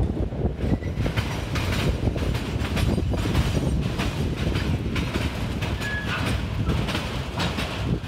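CSX freight train's multilevel autorack cars rolling past, with a steady rumble and irregular wheel clacking over the rail joints. A brief high squeal comes about six seconds in.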